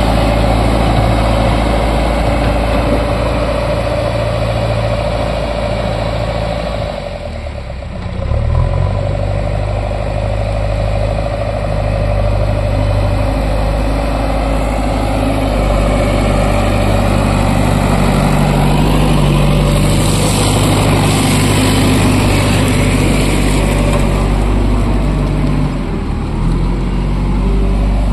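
JCB backhoe loader's diesel engine running steadily while the machine drives along spreading gravel with its front bucket. The engine note sags about seven seconds in, then picks up again a second later.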